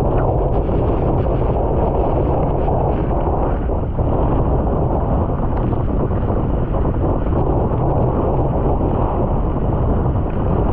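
Strong wind of about 25–35 knots buffeting the microphone, a steady loud rumble.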